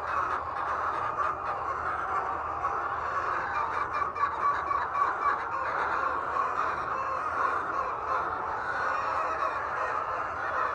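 A large flock of laying hens clucking and squawking together, many overlapping calls making a dense, steady din.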